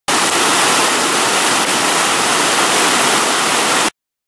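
Whitewater river rapids rushing: a loud, steady rush of churning water that starts abruptly and cuts off suddenly near the end.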